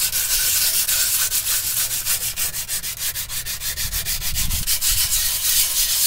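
A strip of sandpaper rubbed by hand across the lining of a drum-brake shoe, in quick back-and-forth strokes several times a second, scuffing the shoe's friction surface.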